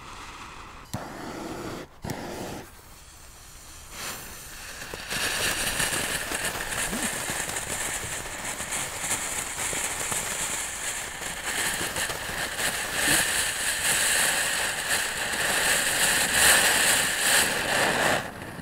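Ground fountain firework in a bucket spraying sparks: a loud, steady hiss with crackling that starts about five seconds in and stops suddenly near the end. Before it, a fainter hiss with a few sharp knocks.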